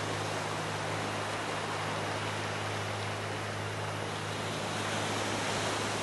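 Steady beach ambience: an even rushing noise with a low steady hum beneath it, unchanged throughout.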